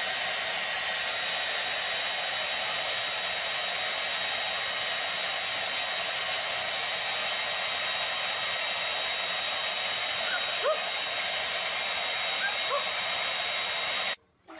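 Handheld hair dryer running steadily: a rush of blown air with a steady whine over it, which cuts off abruptly near the end. A few faint short squeaks sound over it late on.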